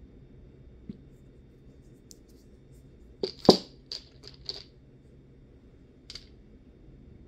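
Small nail polish bottles clinking and knocking against one another as they are handled in a crowded rack: a quick cluster of sharp clicks about three seconds in, with single faint clicks before and after.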